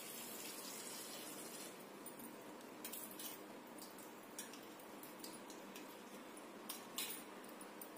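Faint splashing and swishing of water as hands wash green chillies and coconut pieces in a steel plate at a sink, with light clinks of the plate and glass bangles. The sharpest clicks come about three seconds in and again near seven seconds.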